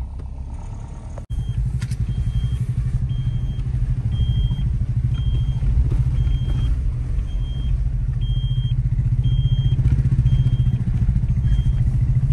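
Motorcycle running on the road, a steady low rumble, briefly cut off about a second in. From about a second and a half in, a high beep repeats evenly, about every two-thirds of a second.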